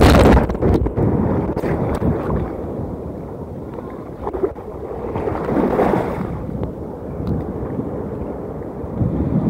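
Sea water rushing and sloshing around a phone held at the surface while riding a wave, with wind buffeting the microphone. The sound is dull and rumbling, loudest at the start, easing off around four seconds in and swelling again around six seconds.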